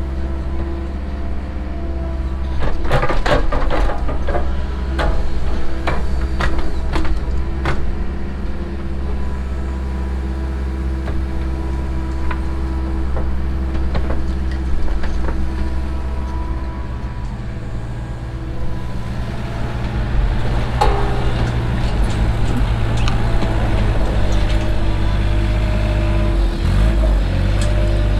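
Cat 307 mini excavator's diesel engine running steadily under hydraulic load as the bucket works soil. A run of clanks and scrapes from about 3 to 8 seconds in.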